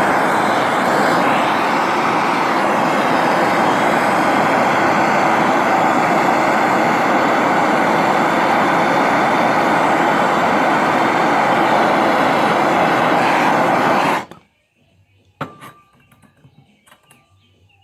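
Gas blowtorch flame burning with a steady, even hiss while heating a joint for silver soldering, shut off abruptly about fourteen seconds in; a single click follows a second later.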